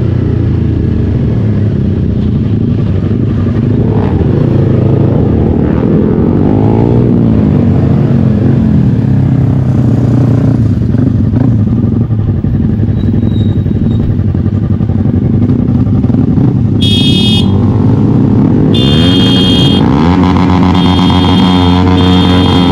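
Motorcycle engine running on the road, its pitch rising and falling as the rider accelerates and eases off. Near the end a high-pitched tone sounds several times in short blasts.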